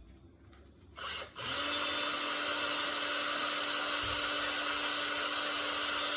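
A handheld power tool starts about a second and a half in and runs at a steady speed with an even whine. It is scouring rust and gunk off a mower wheel part down to shiny metal.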